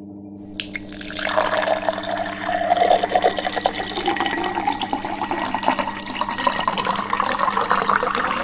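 Soapy water poured in a stream from a plastic jug into a hollowed-out pumpkin, a steady splashing pour that starts about a second in, its pitch slowly rising as the pumpkin fills.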